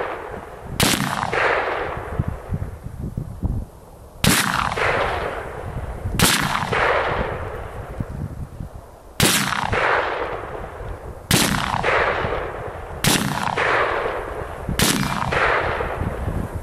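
An M1 Garand .30-06 rifle fired semi-automatically: seven loud shots spaced about two to three seconds apart, each ringing out for a second or so after the crack.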